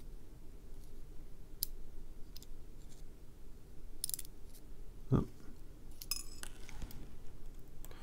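Small metallic clicks and light scrapes of steel tweezers working inside an aluminum lock-cylinder housing to pull out a driver pin. A few sharper clicks come about four seconds in and again just after six seconds, with a duller knock in between.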